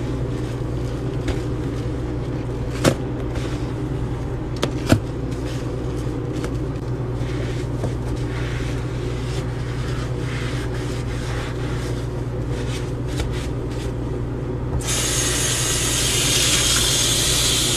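Steady low hum with two brief knocks in the first five seconds. About fifteen seconds in, a kitchen tap is turned on and water runs steadily into the sink as a sponge is rinsed under it.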